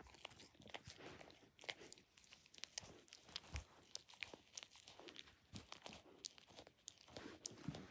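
Dachshund chewing and biting on a stuffed plush toy: faint, irregular crunching and clicking of teeth and jaws working the fabric.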